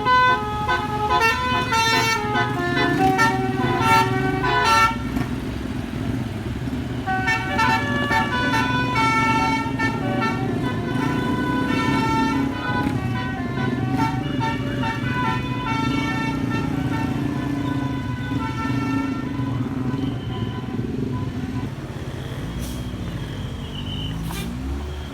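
A bus's 'basuri' multi-tone musical air horn (telolet) playing a tune note by note, over the low drone of the bus engine. The tune breaks off about five seconds in, resumes a couple of seconds later and stops a few seconds before the end, leaving the engine with its pitch sweeping up and down.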